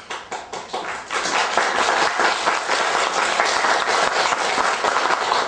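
Audience applauding: many hands clapping together, swelling within the first second and then holding steady.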